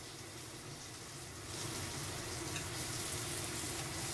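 Salmon fillet sizzling in a hot nonstick frying pan, a steady frying hiss that grows louder about one and a half seconds in.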